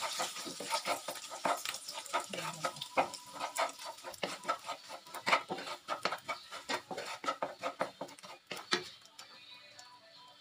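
Wooden spatula scraping and knocking against a wok while stirring crumbled salted egg frying in oil, with a light sizzle. The stirring stops near the end and it goes quieter.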